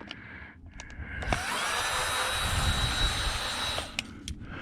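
Power drill-driver spinning up and running steadily for about two and a half seconds while backing out a screw, then stopping, followed by a few short clicks.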